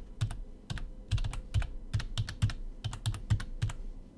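Typing on a computer keyboard: a quick, uneven run of key clicks, several a second, as text is entered.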